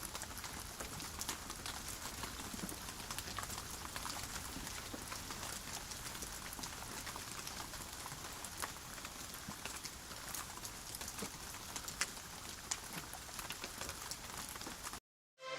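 Steady rain, an even hiss dotted with many separate drops ticking sharply. It cuts off suddenly about half a second before the end.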